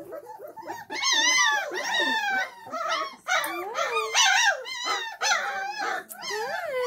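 Twenty-day-old Great Dane puppies whining and yelping: a run of high, wavering calls, one after another with short gaps.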